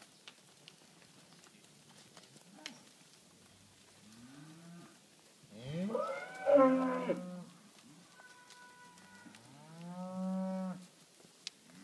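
Heifers mooing: several separate moos, the loudest about halfway through, where two calls overlap, and another long one near the end.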